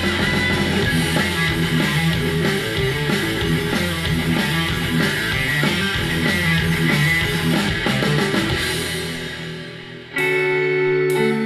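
Stoner-metal track with guitars and drums played through Sharp CP-C411H bookshelf speakers and picked up by a microphone in the room; it fades out about eight seconds in, and a softer guitar-led soft-rock track starts near the end.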